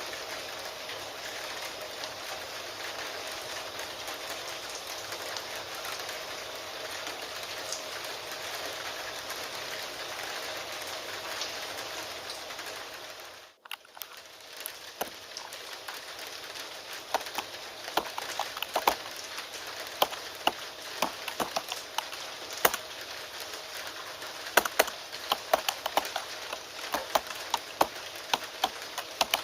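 Steady rain hiss. Just under halfway it dips briefly, then the rain continues with irregular sharp clicks of keyboard typing, several a second, over it.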